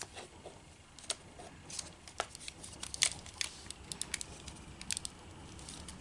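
Irregular small clicks and taps of plastic controller parts being handled and pried loose inside an opened Xbox Elite controller.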